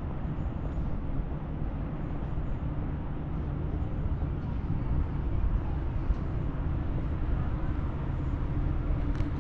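Steady outdoor background rumble, strongest in the low range, with a faint steady hum under it.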